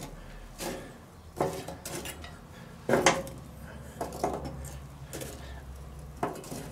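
Metal charcoal tongs clinking as glowing briquettes are picked up and set down on a steel fire table: a handful of sharp metallic clacks at uneven intervals, a second or so apart.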